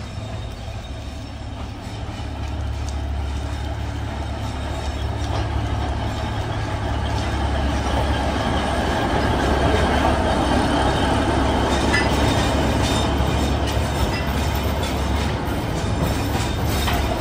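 Narrow-gauge diesel locomotive hauling a cargo train approaches and passes, its engine running with a steady low drone over the rumble of wheels on the rails. The sound grows louder over the first half.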